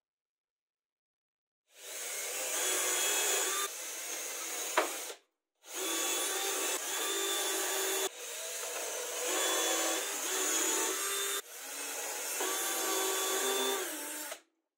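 Cordless drill whirring as it bores or drives into laminated chipboard, in long runs after about two seconds of silence, with a short break about five seconds in and a sharp click just before it.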